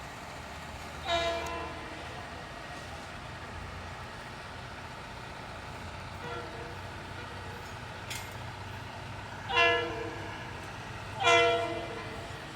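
Metro-North Shoreliner cab car's chord horn sounding short blasts: one about a second in, a faint one midway, then two louder ones close together near the end. A steady low rumble from the train runs underneath.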